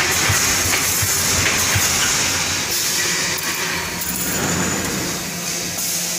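Reinforcing-mesh welding machine running: a steady mechanical clatter with regular low thuds about every three-quarters of a second in the first few seconds.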